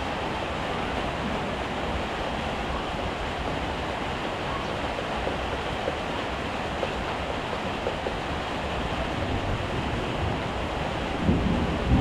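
Heavy rain falling steadily, with a couple of louder thumps near the end.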